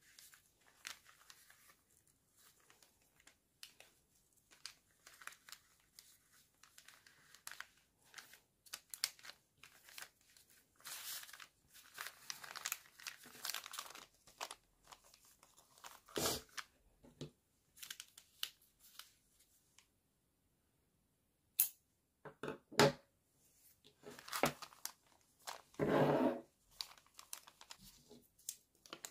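Brown kraft wrapping paper rustling and crinkling as it is handled and folded, in irregular bursts, with a few short sharp knocks.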